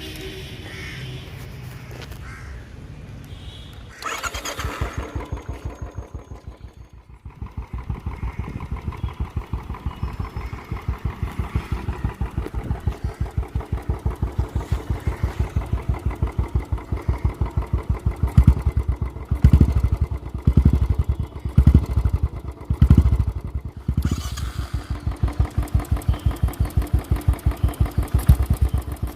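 Royal Enfield motorcycle's single-cylinder engine, breathing through a Peashooter exhaust with no dB killer, starting about four seconds in and settling into an evenly pulsing thump at idle. In the second half the throttle is blipped several times, giving louder peaks.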